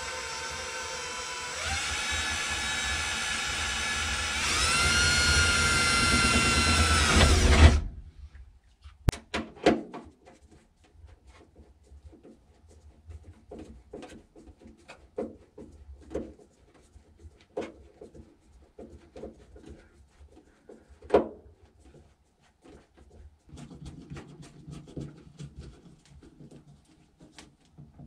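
Cordless drill driving screws into an aluminium door sill plate: the motor whines, stepping up in speed twice, then cuts off suddenly about eight seconds in. After that come scattered clicks and knocks of tools and parts being handled.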